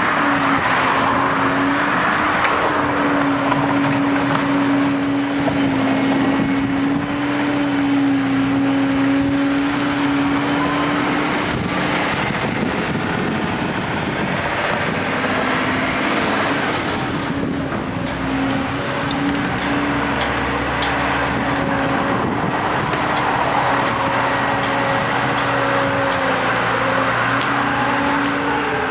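Diesel engine of a Liebherr A316 wheeled excavator running steadily under load as it digs and loads. Its note breaks off about halfway through and returns at a slightly lower pitch, with rougher noise in between.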